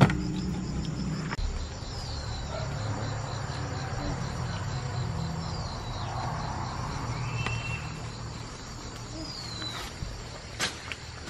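Insects chirping in a steady, fast high pulse over a low steady hum, with a few sharp clicks near the end.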